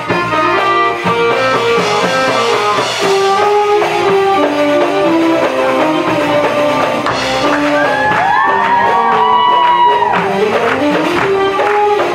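Live Arabic-style music: an electronic keyboard plays the melody over a steady hand-drum rhythm, with some gliding notes near the middle.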